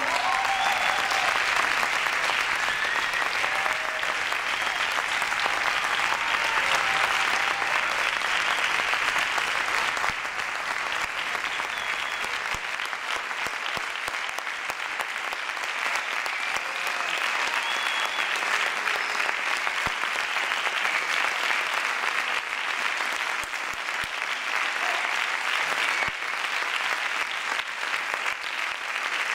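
Concert audience applauding steadily after a percussion ensemble piece ends, with a few cheers.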